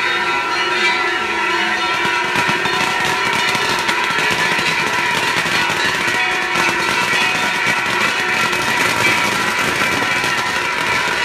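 Festival fireworks showering sparks with a steady hiss and fine crackle, over a dense layer of sustained ringing festival music.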